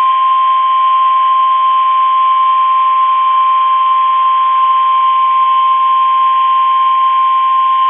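NOAA Weather Radio warning alarm tone: one loud, steady high tone near 1,000 Hz, held unbroken over faint radio hiss. It signals that a warning message is about to be broadcast.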